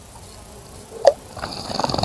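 Small bird bathing in a bird bath: a short sharp splash about a second in, then a rapid fluttering splash of wings beating in the water through the second half.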